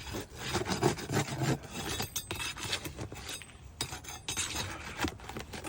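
A metal tool scraping and clinking under a roof shingle as a galvanized roofing nail is worked loose, in short, uneven strokes.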